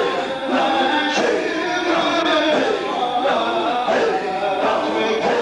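A group of men chanting zikr of Allah together, their voices blending in a continuous, recurring sung phrase.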